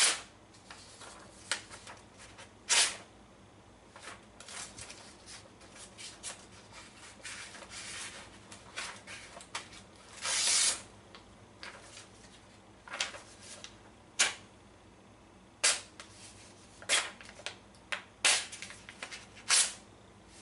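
Sheet of printer paper being sliced with a freshly sharpened rail spike knife: about a dozen short, sharp cutting and rustling sounds, with one longer slice about ten seconds in. It is a paper-cutting test of the blade's sharpness.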